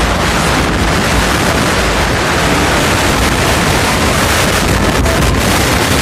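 Loud, steady wind rush buffeting the microphone of a camera riding on a moving motor scooter, mixed with road and engine noise.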